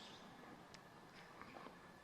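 Near silence: faint outdoor background noise with a few faint ticks and a faint chirp, with no train passing.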